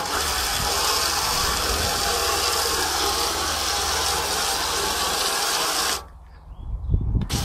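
A hard jet of water from a hose spraying into a rusty steel tub, rinsing loosened rust sludge off wheel rims during electrolytic rust removal, as a steady rushing spray. About six seconds in, the spray cuts out for about a second, then resumes.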